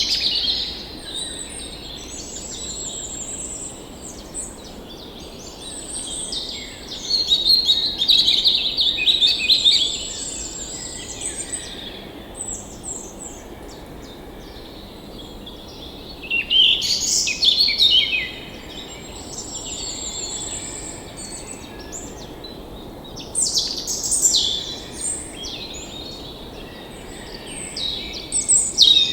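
Several birds singing and chirping in overlapping bouts, some quick trilled phrases, over a steady even rush of flowing water from a waterfall.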